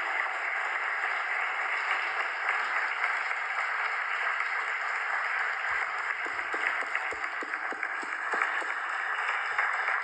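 A large crowd applauding steadily, many hands clapping together.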